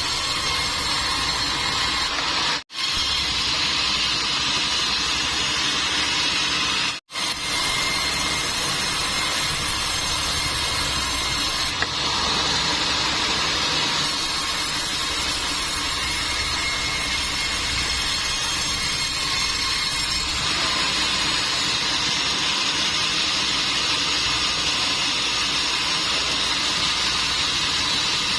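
Sawmill machinery running steadily, a continuous hissing noise, broken by two brief silent gaps about three and seven seconds in.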